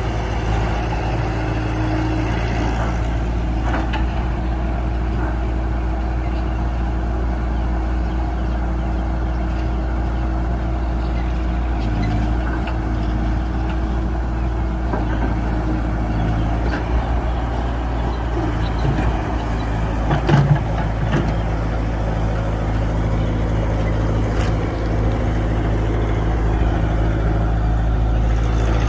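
Excavator engine running steadily at a constant pitch, with a few short knocks, the loudest about two-thirds of the way in.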